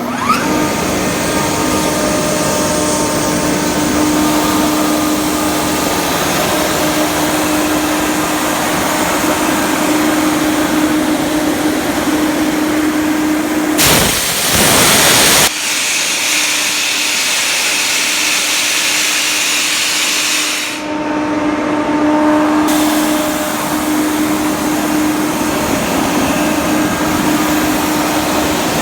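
Ingersoll Rand SSR-EP30 30 hp rotary screw air compressor running steadily, a loud even drone with a steady hum. About halfway through, a louder rush of noise lasts about a second and a half.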